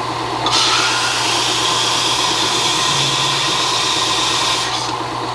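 Belt sander running with a steady motor hum. About half a second in, a thin black walnut board is pressed to the belt and a loud sanding hiss lasts until near the end, as the board's bottom edge is beveled so it will fit its channel.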